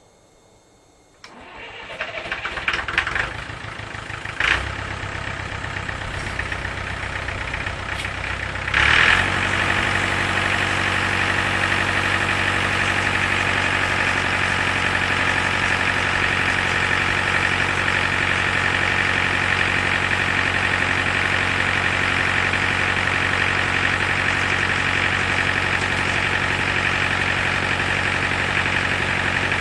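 Tractor engine being started: it cranks for a few seconds, catches and runs slowly, then about nine seconds in picks up to a faster, louder steady run.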